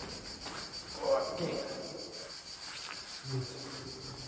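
Insects chirping steadily in a high, finely pulsing band. A louder mid-pitched sound comes about a second in, and a short low hum a little after three seconds.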